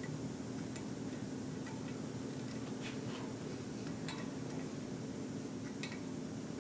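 Faint, scattered metallic clicks and ticks of hands and an Allen wrench working the bolts of the harmonic balancer on the crankshaft, over a steady low hum.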